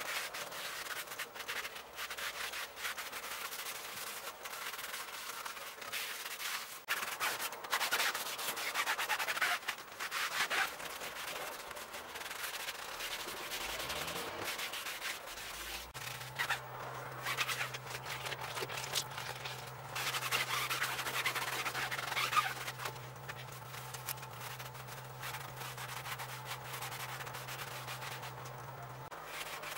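Repeated hand rubbing strokes on a used 14-inch steel wheel rim, irregular scrubbing passes. A steady low hum comes in about halfway through and stops shortly before the end.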